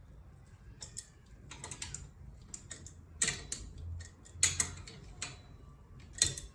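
Irregular light clicks and clinks of hand tools on metal bicycle parts, some in quick clusters, the sharpest about three, four and a half and six seconds in, as the handlebar fitting is worked on.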